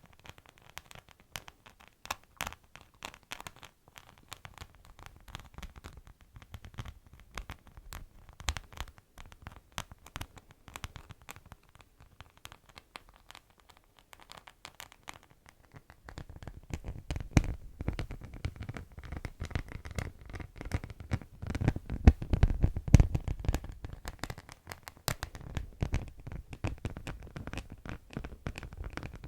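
Beeswax wrap crinkled and scratched by hand: a dense run of small crackles, growing fuller and louder about halfway through.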